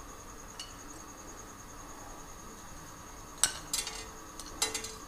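Light clicks and clinks of dry whole spices and utensils being handled at a frying pan: one early, then a short cluster near the end, over a faint steady hiss.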